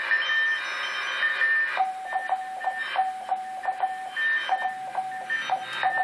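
Morse code (CW) beeps from a shortwave radio receiver: a higher-pitched keyed tone for the first couple of seconds, then a lower-pitched tone tapping out rapid dots and dashes, with the higher tone still faintly behind it. The signal is an amateur station calling CQ, which the decoder prints as 'CQ WES NC1M'.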